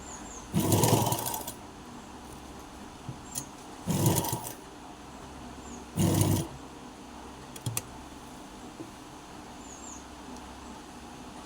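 Sewing machine stitching in three short bursts, near the start, about four seconds in and about six seconds in, with a couple of small clicks after the third.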